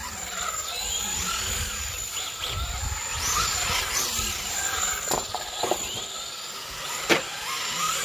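Traxxas 4-Tec RC cars' electric motors whining up and down with the throttle as the cars race over concrete, with tyre scrub under them. A few sharp knocks come about five and seven seconds in.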